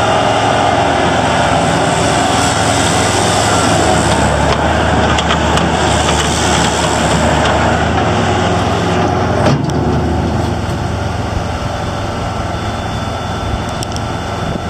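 Bobcat 853 skid steer loader's diesel engine running steadily at a fairly high speed, easing off somewhat about two-thirds of the way through, with a brief knock at that moment.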